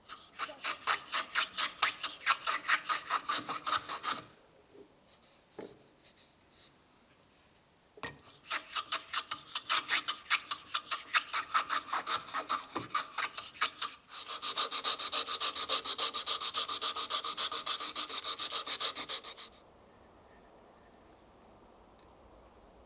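Wood being rubbed by hand with quick, even back-and-forth strokes in three spells: a run of about four seconds, a pause with a couple of light knocks, then a longer run. The last stretch turns into faster, smoother, almost continuous rubbing before stopping suddenly.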